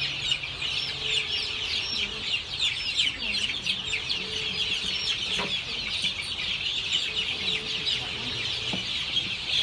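A flock of three-week-old chicks peeping all at once: a dense, unbroken chorus of short, high-pitched, falling peeps.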